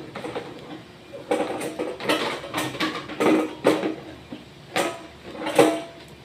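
Cleaning rod and cloth being worked through a stainless pistol barrel: about ten short, scraping strokes of metal and cloth, some with a squeak, with a pause about two-thirds through.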